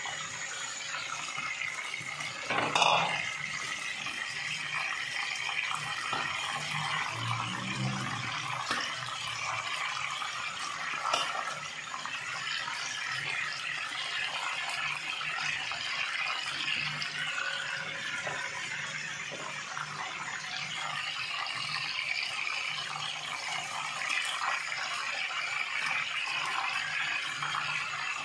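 Sesame-coated chicken pieces deep-frying in hot oil in a karahi: a steady sizzle and bubbling throughout. A couple of short knocks sound, about three seconds in and again near eleven seconds.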